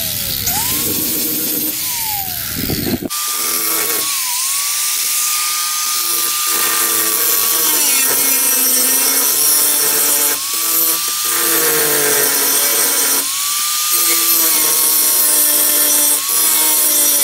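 Handheld electric power tool working on car-body sheet metal, its motor whine sagging in pitch each time it is pressed into the work and climbing back as it is eased off, several times over, with a hiss of cutting or grinding throughout.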